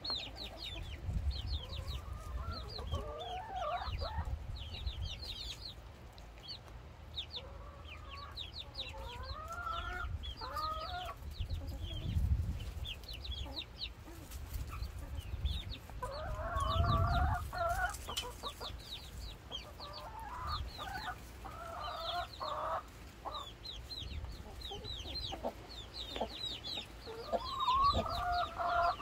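Flock of young chickens vocalising while feeding: rapid, high, falling peeps go on throughout, with groups of lower clucking calls every few seconds.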